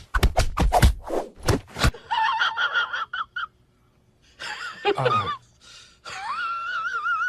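A quick run of sharp knocks or rustles for about two seconds, then a cat meowing in high, wavering calls, the last one long and warbling near the end.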